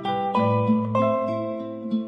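Background music: plucked-string instrumental with gently picked notes and a few low sustained tones.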